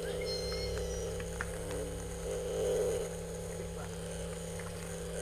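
Steady low mechanical hum, with a few short high chirps about half a second in.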